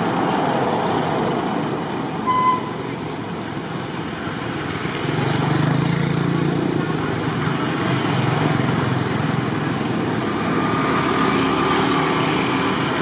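Road traffic noise: vehicle engines running, growing louder about five seconds in, with one short high-pitched toot about two seconds in.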